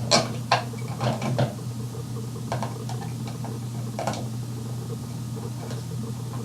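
A wired light switch being pushed back into its wall box: scattered sharp clicks and scrapes of plastic and wires, several in the first second and a half and a few more later, over a steady low hum.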